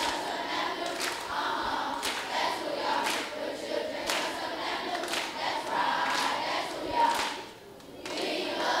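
A large group of voices singing together, with hand claps about once a second and a brief break between phrases near the end.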